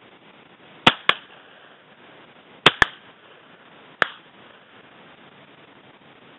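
Shotgun shots during a bird hunt: five sharp reports in about three seconds, two quick pairs and then a single shot.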